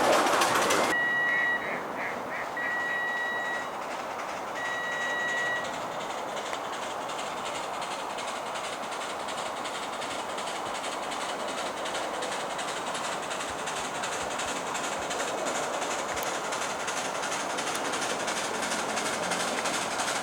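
A 7¼-inch gauge miniature railway train sounds its high whistle in three or four short toots, then runs past with a steady running noise of wheels on track. A louder noise in the first second cuts off suddenly.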